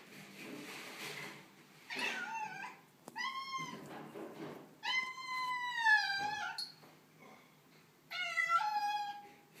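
Tortoiseshell cat meowing four times, the third call the longest, drawn out for over a second and a half. These are the complaining meows of a cat not pleased with its new home.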